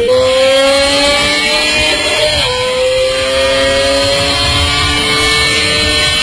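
Honda CBR250RR's 250 cc four-cylinder engine at very high revs, its high-pitched tone climbing slowly through a gear. The pitch drops sharply at a gear change about two and a half seconds in, then climbs again.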